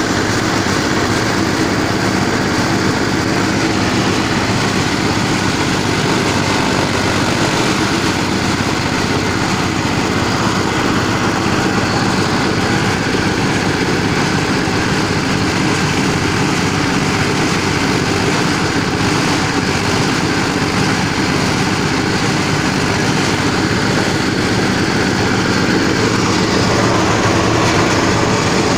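A motor-driven machine running steadily and loudly, with no change in speed.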